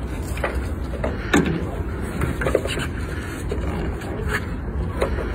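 Steady low rumble of wind on the microphone, with a few light knocks and scrapes as a large model airplane's airframe and landing gear are handled and set down on concrete; the sharpest knock comes about a second and a half in.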